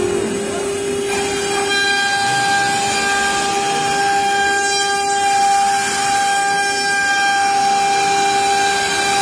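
HSD spindle on a CNC wood router running with a steady high whine as it cuts a wooden panel, over the hiss of the cutter chipping through the board.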